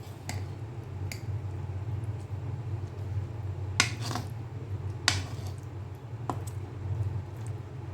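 Kitchen utensils clinking a few times, with two louder clinks about four and five seconds in, over a steady low hum.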